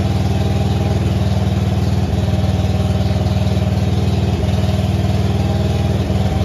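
Engine-driven welder running steadily at idle.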